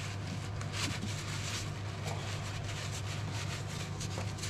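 Cloth or tissue rustling as it is handled and wiped around a plastic jug of adhesive, over a steady low hum.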